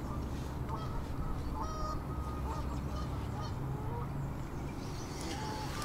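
Waterfowl on the lake calling: a scatter of short, separate calls over a steady low background rumble.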